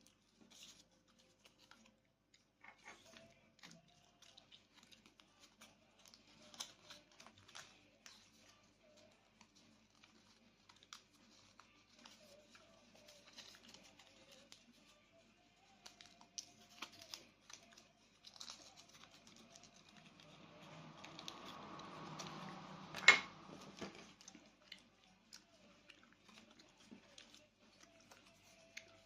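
Small handling noises: scattered clicks and crinkling of packaging, with a longer rustle about two-thirds through and one sharp, louder click within it.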